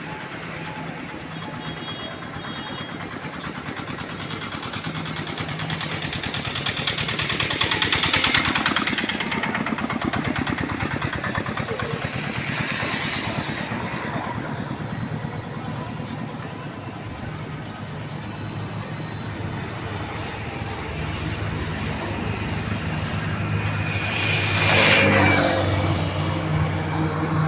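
Motor vehicle engines running and passing close by over a steady rushing noise, with louder passes about eight seconds in and near the end.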